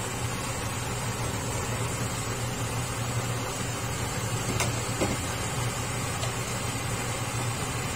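Steady low kitchen hum with an even hiss, and about four and a half seconds in a sharp clink followed by a light knock as the glass pan lid is set down beside the pan.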